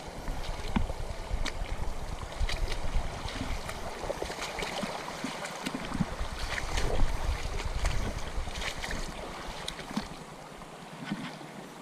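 Wind buffeting the microphone over the steady rush of running water in a river. The wind rumble rises and falls in gusts and dies away near the end.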